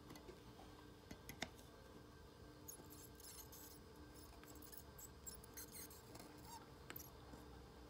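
Near silence: faint room hum with a few soft clicks and a little light scratching.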